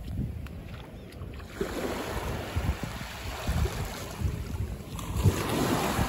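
Small waves washing up on a sandy shore, two soft surges of surf, the second one near the end and louder, over a low buffeting of wind on the microphone.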